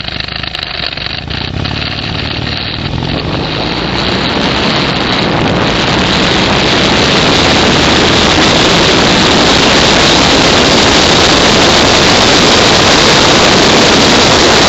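A vehicle running and gathering speed, its sound swelling over the first several seconds into a loud, steady rush of wind on the microphone that covers the engine.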